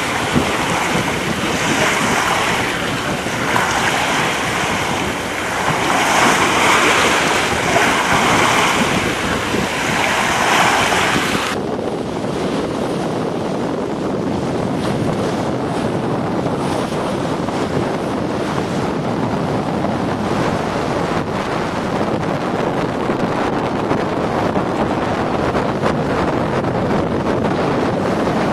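Sea water rushing and splashing along a sailing yacht's hull, swelling and easing about every two seconds. About eleven seconds in it changes abruptly to a steadier, duller rush of wind and water.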